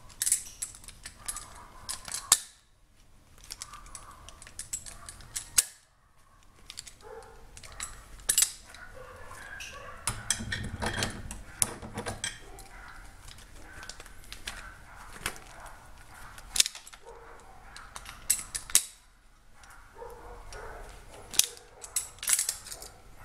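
Steel ball bearing being pried apart with locking pliers: irregular sharp metal clicks, clinks and rattles as the steel cage around the balls is worked loose and pulled out.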